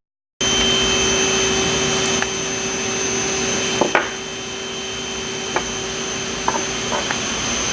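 Steady mechanical drone of workshop machinery with a constant high whine running through it, and a few small sharp clicks of parts and tools being handled.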